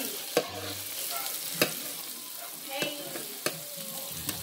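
Hamburger patties sizzling in grease and steak sauce in a shallow metal pan: a steady frying hiss with five sharp clicks spread through it.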